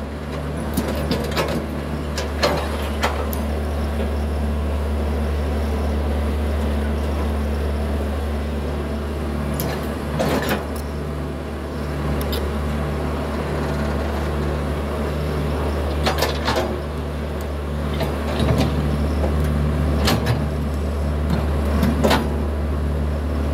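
Hitachi 110 hydraulic excavator's diesel engine running steadily while it digs. Scattered sharp clanks and knocks come from the bucket and arm working through soil and palm debris, a few near the start and more in the second half.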